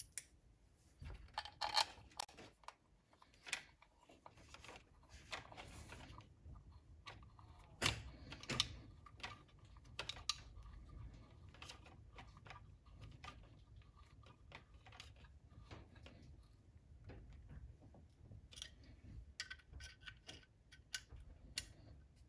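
Quiet, scattered light clicks and taps of hands handling small hard parts on an engine's aluminium valve cover while fitting ignition-coil bracket hardware, over a faint low rumble.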